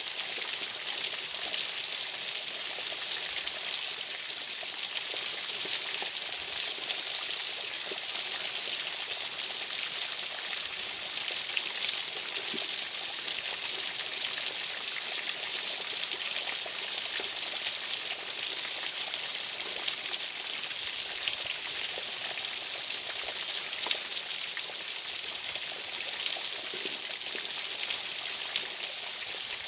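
A steady, high-pitched rushing hiss like running water, unchanging in level, with faint scattered ticks.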